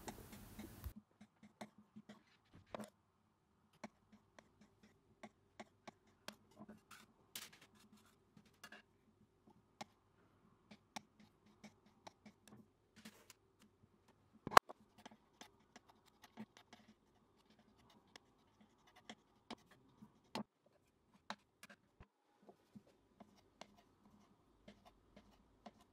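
Kitchen knife cutting filled dough strips into small pieces on a countertop: soft, irregular taps and scrapes of the blade against the counter, with one sharper knock about halfway through.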